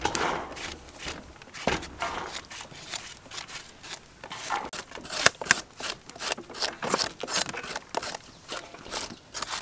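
Irregular small clicks, taps and scrapes of food being prepared by hand. Near the start, chopped long beans patter onto a metal tray. Later a knife scrapes and peels a vegetable.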